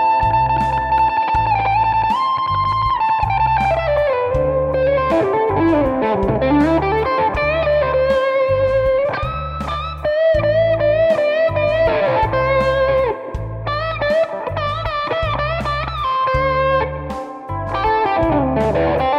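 Electric guitar playing A minor pentatonic lead lines, held notes with vibrato and pitch slides, over a steady low bass rhythm.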